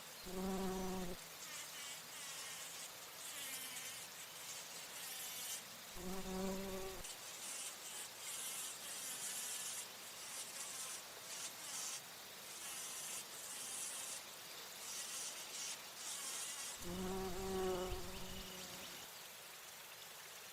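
Bumblebee buzzing in flight, a low hum heard in three short passes: one at the start, one about six seconds in, and a longer one near the end. Softer high-pitched chirring comes and goes in the background.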